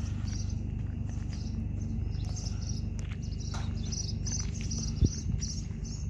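Insects chirping in an even, repeating rhythm of about three high chirps a second, over a low steady rumble, with one sharp thump about five seconds in.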